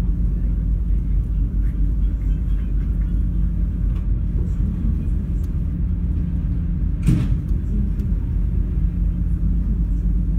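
Ferry's engines running on board with a steady low hum, and a single short knock about seven seconds in.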